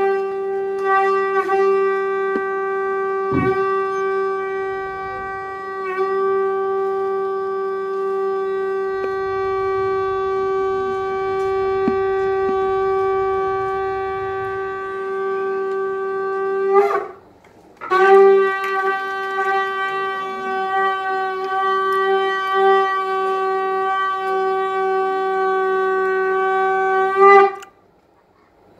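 Conch shell (shankh) blown for a ceremonial shankhnaad: a long, steady, single-pitch blast that ends about seventeen seconds in, then after a gap of about a second a second blast held for nearly ten seconds, stopping shortly before the end.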